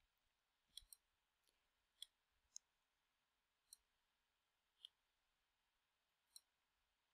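Near silence broken by about seven faint, sharp clicks at irregular intervals, typical of a computer mouse being clicked while dragging objects on screen.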